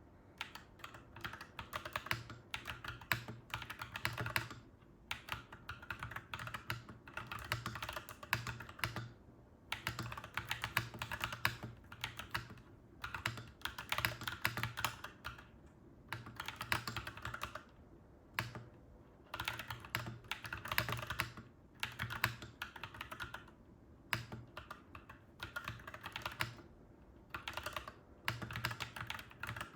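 Clacky mechanical keyboard being typed on in quick runs of keystrokes, broken by short pauses between bursts.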